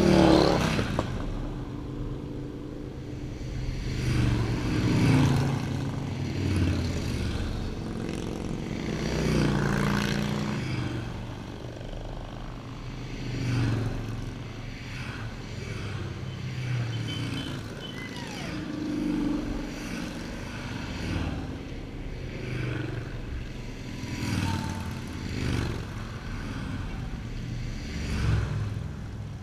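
A procession of cruiser and touring motorcycles riding past one after another, each engine swelling and fading as it goes by. The loudest pass comes right at the start, its pitch dropping as the bike goes past.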